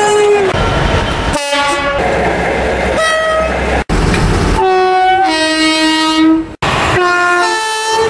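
British train horns in a run of short clips joined by abrupt cuts: loud two-tone blasts, a higher note then a lower one, over the running noise of trains passing through stations.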